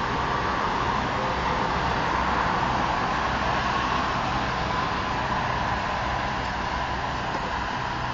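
A steady engine hum with a faint constant whine above it, holding level throughout.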